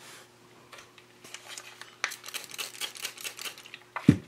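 Light ticking and rustling of cotton fabric being handled and smoothed flat on a pressing mat, ending in a short thump about four seconds in.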